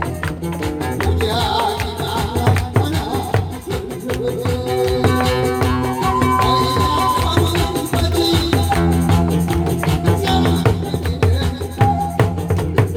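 Loud, upbeat backing music with fast, regular drum strokes over it: a nanta drumming routine played to a music track.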